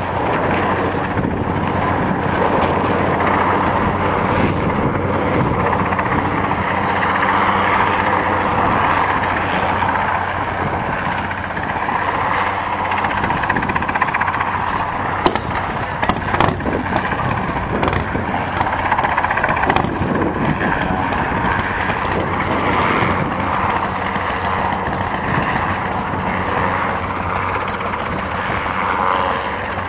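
Helicopter hovering with a slung rooftop unit on a long line, its rotor and engine a steady, loud drone. Scattered sharp crackles join in from about halfway.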